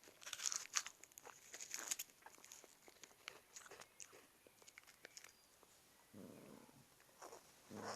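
Cat rummaging in a drawer: faint rustling and scattered light clicks, then two short low animal sounds in the last two seconds.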